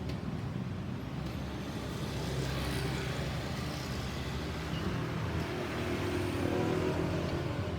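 Road traffic: the engines and tyres of vehicles going by, getting louder toward the end as one comes closer, with no siren sounding.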